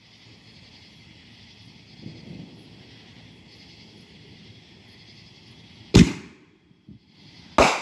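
Fireworks going off: a faint hiss, then two loud bangs about a second and a half apart near the end, each trailing off briefly.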